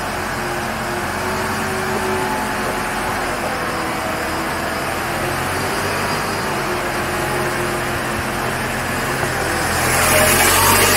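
Unimog U 5000's four-cylinder diesel engine running at low, slowly wavering revs as the truck crawls along. It grows louder, with more hiss, about ten seconds in as the front wheel climbs onto a steep ramp.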